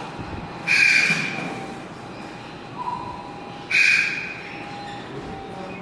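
Striped owl calling twice, about three seconds apart, each call short and loud and fading away.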